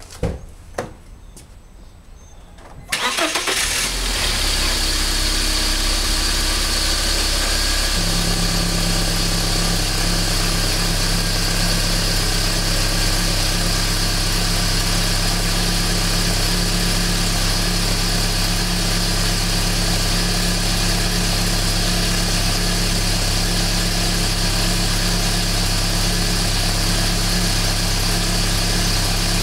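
BMW E46 318i four-cylinder engine started after two clicks, catching about three seconds in and then idling loudly with its secondary air pump running; the note shifts once about eight seconds in and then holds steady. The loud bubbling, rattling noise ("boko-boko", "kata-kata") is an abnormal noise from the secondary air pump after a cold start.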